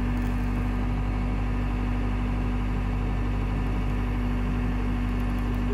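Tractor engine running steadily at one even pitch.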